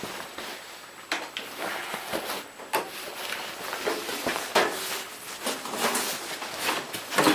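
Irregular knocks, clicks and rustling of things being handled, with no engine running.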